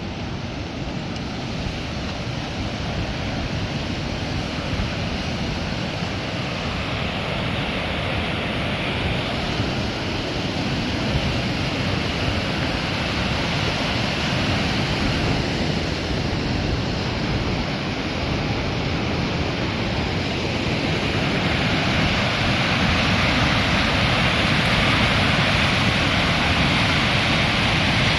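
Whitewater rapids on a river rushing steadily, growing slowly louder, with the hiss brightening over the last few seconds.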